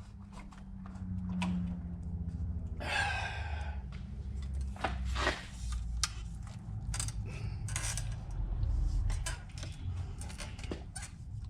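Scissors cutting thin Lexan polycarbonate sheet: irregular sharp snips and crackles of the plastic. There is a breathy exhale about three seconds in.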